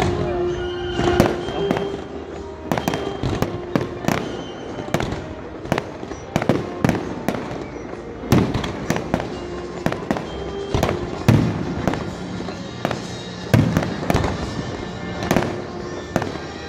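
Fireworks display: many shells bursting in quick succession, sharp bangs and crackles, with the heaviest bangs about eight, eleven and thirteen seconds in.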